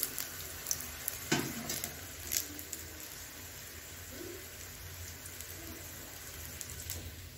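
Pakoras deep-frying in hot oil in a kadhai: a steady sizzle, with a few sharp clicks in the first two and a half seconds.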